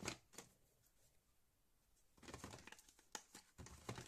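Faint rustling and light clicks of cosmetics packaging being handled, in two short spells: at the very start and again from about halfway through.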